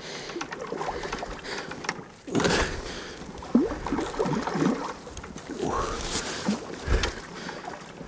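Splashing of a hooked carp thrashing at the water's surface as it is played on the rod, in several irregular bursts, the strongest about two and a half seconds in.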